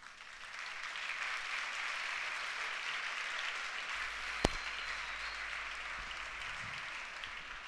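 Audience applauding at the end of a talk, the clapping rising quickly at the start, holding steady and easing off slightly near the end. A single sharp click about four and a half seconds in.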